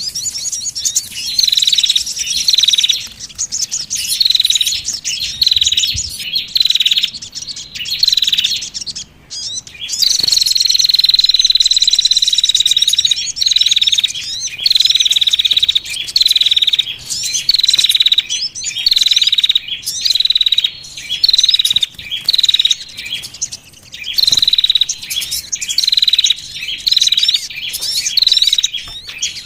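Loud, high chirping calls of small songbirds used as a bird-trapping lure. The short chirping phrases repeat about once a second, with one longer trill held for a few seconds about ten seconds in.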